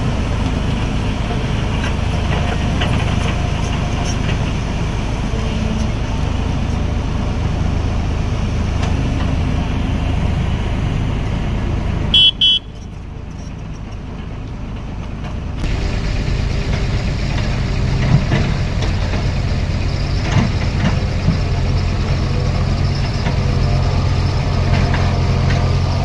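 Diesel engine of a JCB tracked excavator running steadily as it digs. A vehicle horn gives two short toots about halfway through.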